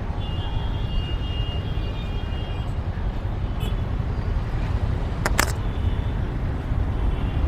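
Bajaj Pulsar NS 125 single-cylinder motorcycle being ridden, with a steady low rumble of engine and wind on the microphone. A couple of sharp clicks about five seconds in.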